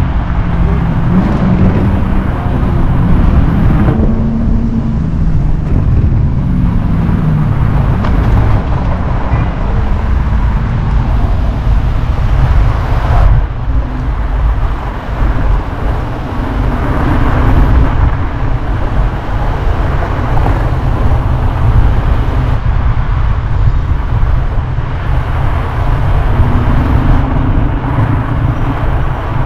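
Steady low rumble of wind buffeting the microphone, mixed with street traffic noise, while riding an FLJ K6 electric scooter through city streets; a faint hum wavers in pitch over the first several seconds.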